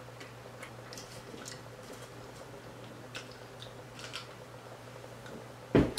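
Faint scattered clicks and small mouth sounds of someone drinking from a sports water bottle, with a brief louder sudden sound near the end.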